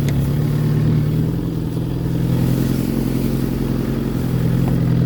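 Fiat 147 pick-up's engine running at steady revs under load in low first gear, while a drive wheel spins on dry grass on a slope.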